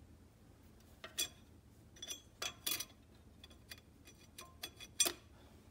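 A 4L60E low-reverse clutch friction plate being set into the transmission case and seated on the clutch pack: a scattered string of light metallic clicks and clinks as the plate's teeth meet the splines and the stack. The sharpest clink comes about five seconds in.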